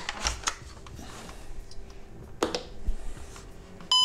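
Plastic clicks and knocks as the VW Golf 5 instrument cluster and its power connector are handled and plugged in. Right at the end the powered cluster's newly replaced warning-buzzer speaker starts its gong chime, a sudden clear ringing tone.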